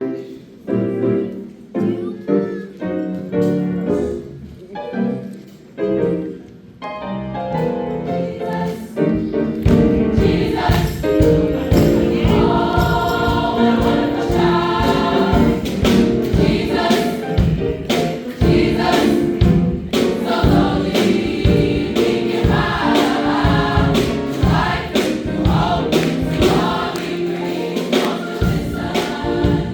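A choir singing, softly at first with pauses. About ten seconds in, a steady beat joins and the singing grows fuller and louder.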